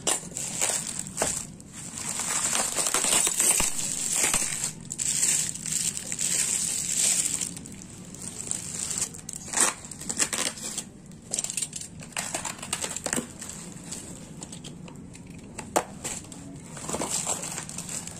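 Bubble wrap and plastic film crinkling and crackling in irregular bursts as tape-wrapped packaging is cut and pulled off an exhaust pipe, with a few sharp clicks.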